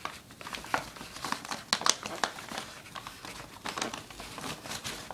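Paper bag crinkling and rustling as it is handled, in many irregular crackles.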